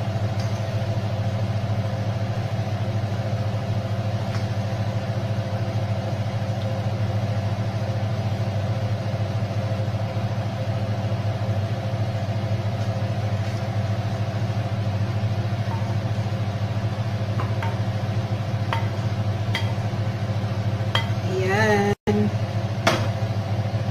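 Steady hum of a kitchen range hood fan over the stove. Near the end come a few taps and scrapes as a wooden spoon pushes stir-fried food from the pan onto a plate.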